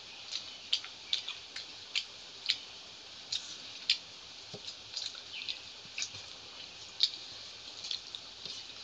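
Eating sounds of hand-eaten rice and curry: irregular wet little smacks and clicks of chewing and of fingers mixing rice with curry, about one or two a second, the loudest about seven seconds in.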